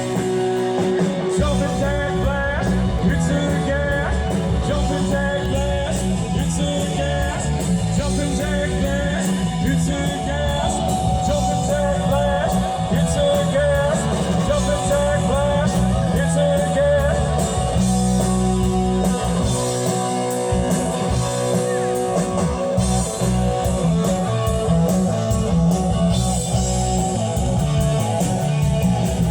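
Live rock band playing with a singer and guitar.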